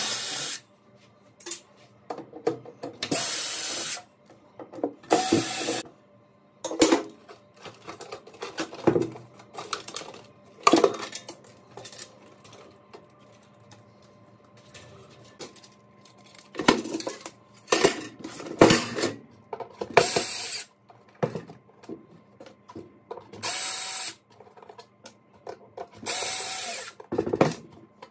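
Cordless 20-volt drill/driver running in short bursts of about a second, several times, backing screws out of a soundbar's back panel. Between the runs come sharp knocks and clatter of panels and parts being handled.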